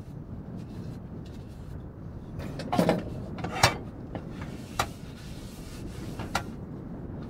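A few short knocks and clatters, four in all, the first the longest, over a steady low rumble.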